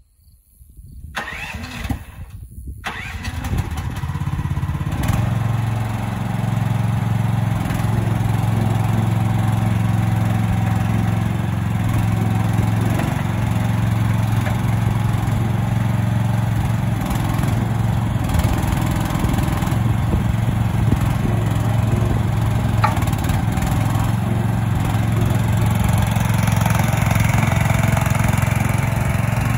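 AGT Industrial H15 mini excavator's engine starting up, building over the first few seconds, then running steadily while the machine is worked.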